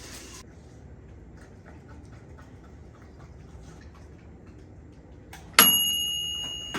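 Timer ticking faintly and steadily, then about five and a half seconds in a single bright ding that rings out and fades over about a second: the signal that the cooking time is up.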